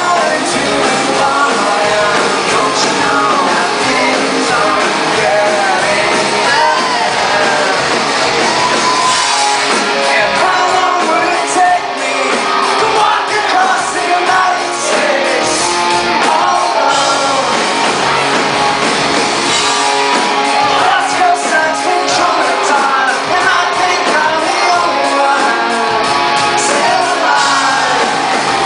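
Rock band playing live with a lead singer, full guitars, bass and drums, heard in a large concert hall with its reverberation, and some shouting that blends with the singing.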